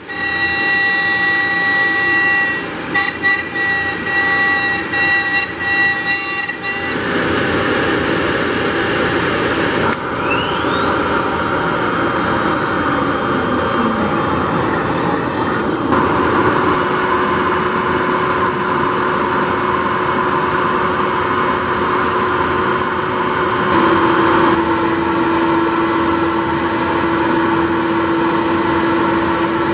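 AXYZ CNC router spindle running at speed and milling Precision Board Plus urethane sign board: a steady high whine over a rushing noise. The tone and texture shift several times, with a whine sliding up in pitch about ten seconds in and a steady hum growing louder near the end.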